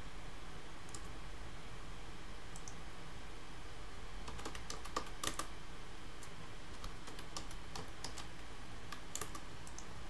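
Scattered clicks of a computer mouse and keyboard: mouse buttons, scroll wheel and the Shift key, over a steady low hum. The clicks bunch together about halfway through and again near the end.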